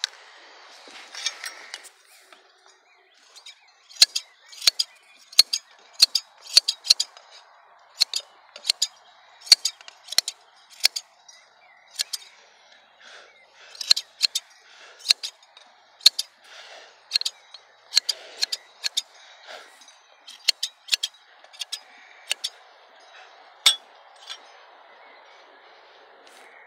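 Large scissors snipping wool away from around a sheep's curled horn: sharp blade clicks, one to two a second with short pauses, from about four seconds in until near the end. A short rustle of handling comes about a second in.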